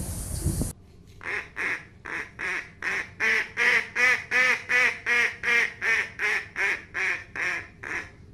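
A duck quacking in a steady run, about eighteen quacks at roughly two and a half a second, starting about a second in. Before it a short rush of outdoor noise cuts off abruptly.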